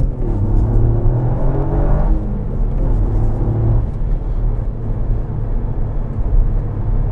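Toyota GR Yaris's 1.6-litre turbocharged three-cylinder engine accelerating under load, heard from inside the cabin. Its note rises, drops at a gear change about two seconds in, rises again and then settles into a rougher drone about four seconds in.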